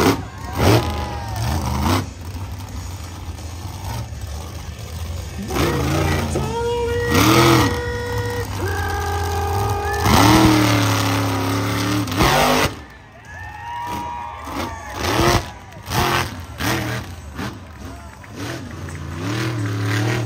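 Monster truck engine revving hard again and again, its pitch climbing and dropping with each stab of the throttle.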